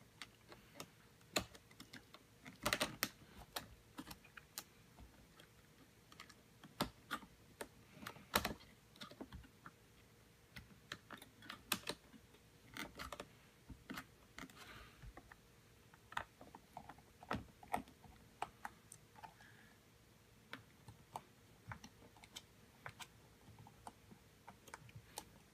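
Light, irregular clicks and taps of a small screwdriver turning the screws of a MacBook's metal battery-bay bracket back in, with the odd louder tap of metal parts.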